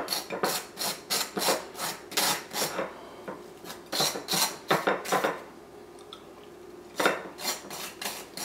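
Table knife scraping butter across the crisp toasted face of a sliced hot cross bun, in quick repeated strokes about two or three a second, pausing for a moment about two-thirds of the way through before starting again.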